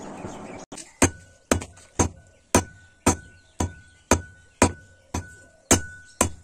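Hand hammer striking a red-hot steel knife blank on a railway-rail anvil, about two blows a second, each blow followed by a steady high ring from the rail. Before the first blow there is a short stretch of steady noise.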